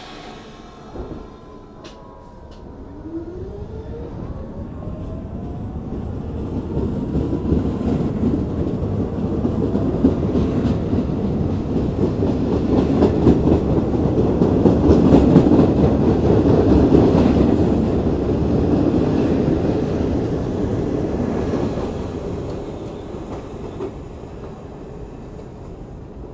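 R46 subway train pulling out of the station: its motors whine rising in pitch as it picks up speed, and its wheels clack over the rail joints. The rumble grows loudest as the cars pass about halfway through, then fades as the train pulls away.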